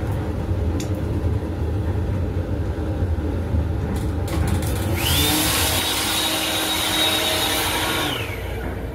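Hand dryer built into the sink panel of an M7 railcar restroom, blowing for about three seconds from halfway in. Its motor whine rises at the start, holds steady, then drops away as it shuts off. The train's running rumble continues underneath.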